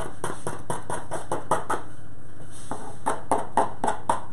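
Spatula chopping down along the rim of a round baking pan to cut away the overhanging focaccia dough: a quick series of short taps, about five a second, with a brief pause midway.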